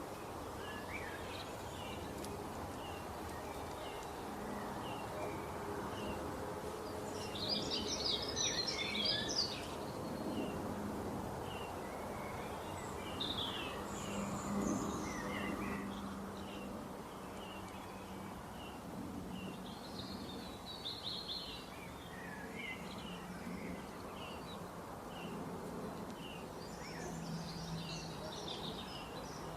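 Many small birds chirping steadily, with louder flurries of rapid twittering about a quarter of the way in, around two-thirds through and near the end, over a steady background wash of noise.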